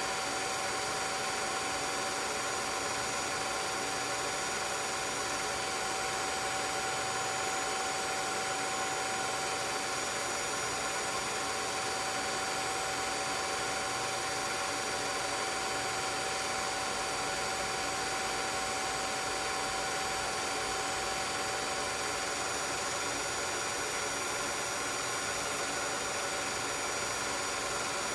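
16mm film projector running: a steady whir and hum with several constant high whining tones over an even hiss.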